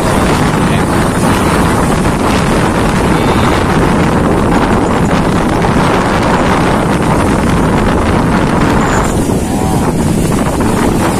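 Steady loud rush of wind on the microphone aboard a ship at sea, over a low rumble from the ship and the water. About nine seconds in, the hiss thins out.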